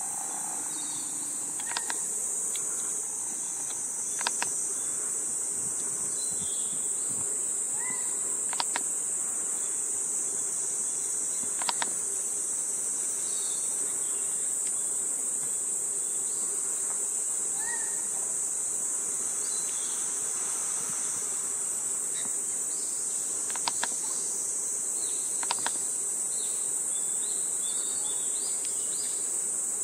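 Steady high-pitched drone of an insect chorus, with a handful of sharp clicks and a few faint short chirps scattered through it.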